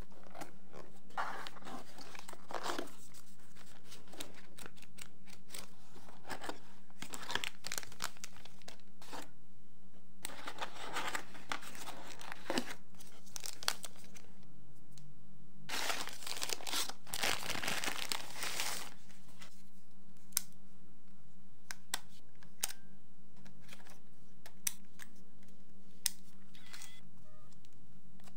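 Camera packaging being unboxed: cardboard box handled and opened and plastic wrapping crinkling and tearing, in rustling bursts with the longest, loudest stretch about two-thirds of the way through. After that only a few sharp separate clicks as the camera itself is handled and its flip-out screen opened.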